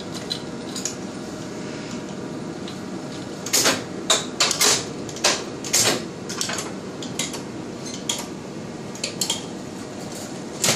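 Sharp metallic clicks and clunks as the Shimadzu RadSpeed X-ray tube head and collimator are handled and shifted on their mount. The knocks come in a cluster near the middle and again near the end, over a steady faint hum from the powered-up machine.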